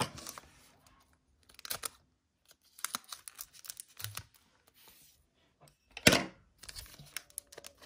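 Wrapper of a Panini Prizm basketball card pack crinkling in the hands and being torn, in short irregular spells of crackle with one louder rip about six seconds in.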